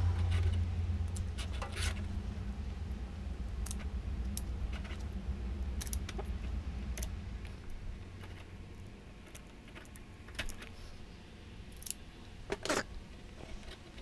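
Hand wire cutters snipping and handling thin insulated hookup wire, a series of short sharp clicks and snips, the loudest few near the end. A low steady hum underneath fades out about halfway.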